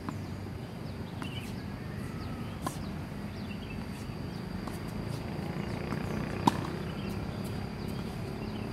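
A tennis ball being hit by rackets and bouncing on the hard court during a rally: a few sharp pops, the loudest about six and a half seconds in, over a steady outdoor background.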